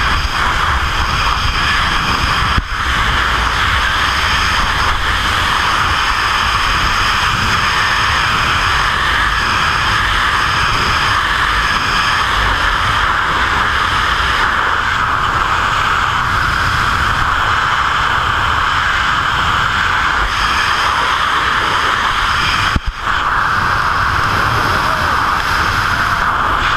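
Freefall wind rushing over a GoPro camera's microphone: loud, steady wind noise. It dips briefly twice, about three seconds in and again a few seconds before the end.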